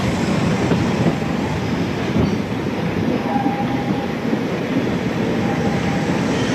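A train running along the track, heard from the roof of one of its carriages: a loud, steady rolling noise of wheels and wagons.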